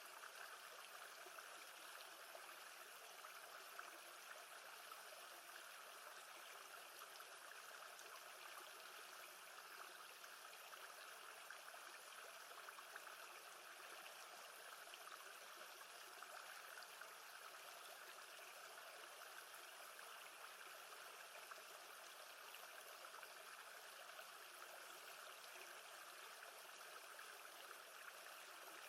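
Faint, steady water sound of a calm lake, an even wash with no distinct splashes.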